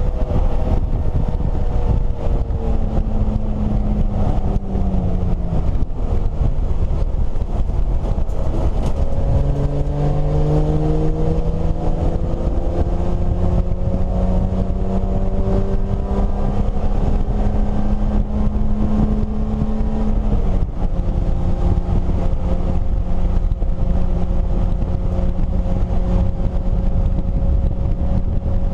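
BMW E30 race car's engine heard from inside the cabin at racing speed, over road and wind noise. Its pitch sinks and steps as the car slows for a corner, climbs steadily for about ten seconds under acceleration, drops suddenly at a gear change about twenty seconds in, then holds nearly steady.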